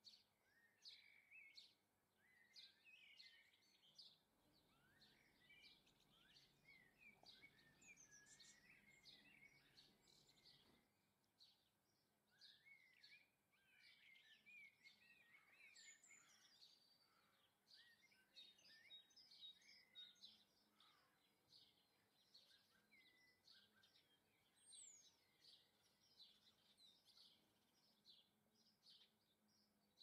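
Faint chirps and twittering of small garden songbirds: many short calls throughout, with bursts of rapid, wavering twitter.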